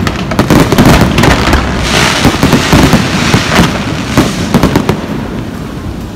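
Fireworks in a dense barrage: rapid, overlapping bangs from many shells, with a crackling hiss in the middle, thinning out and dying away near the end.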